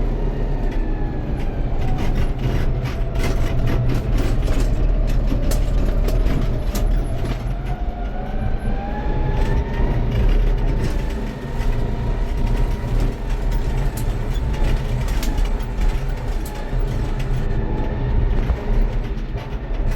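Farm tractor's engine running steadily with a rotary tiller, with many knocks and rattles, and a whine that rises in pitch about eight seconds in and then holds.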